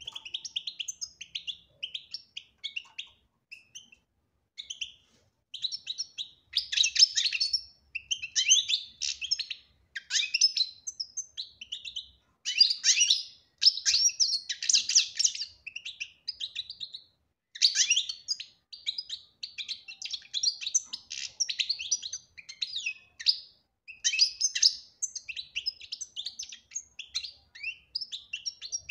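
European goldfinch singing a fast, twittering chatter of high notes, in phrases of a second or two with short pauses between them.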